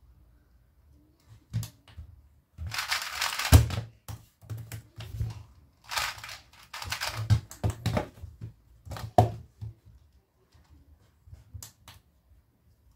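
A 2x2 speedcube being turned fast in two bursts of plastic clacking, each about a second or two long, with a few sharp knocks, the loudest near the end of the first burst, and light clicks near the end.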